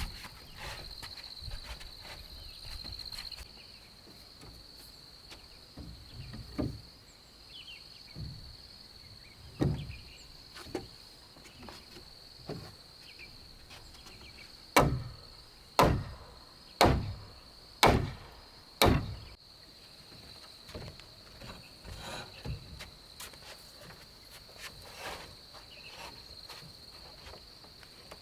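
Heavy blows on timber, a run of five about a second apart near the middle with scattered lighter knocks before it, as wooden parts are knocked together. Insects chirr steadily throughout.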